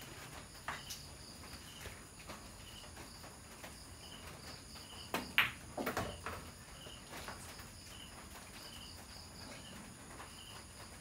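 Pool balls clicking: a cue tip hits the cue ball and balls knock together in a quick cluster of sharp clicks about halfway through. A cricket chirps steadily in the background, about once a second.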